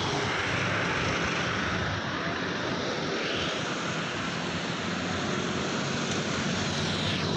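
Steady road traffic noise from cars and motorcycles passing close by.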